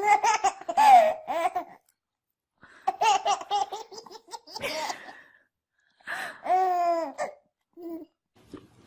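A baby laughing in three bursts of high-pitched giggles and squeals, with short pauses between them.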